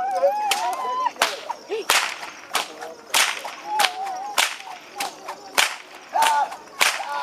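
A whip cracking over and over, about eleven sharp cracks at an even pace of nearly two a second.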